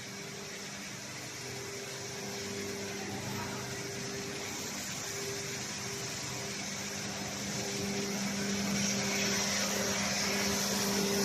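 Fans of an industrial board dryer running: a steady mechanical hum with a rushing of air, growing a little louder toward the end.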